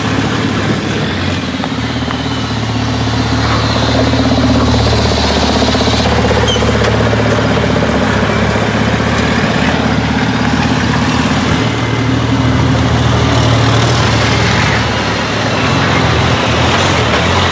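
Racing trucks' big diesel engines rumbling at low speed as they drive past one after another, the pitch rising and falling with the throttle. A short hiss about six seconds in, and a faint thin whistle near the end.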